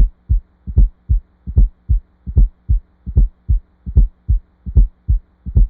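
Heart sounds heard on auscultation with a fourth heart sound (S4, atrial gallop): each beat is a soft low thud just before the loud first heart sound, followed by the second sound, about 75 beats a minute, over a faint steady hum. The extra thud falls late in diastole, when the atria contract.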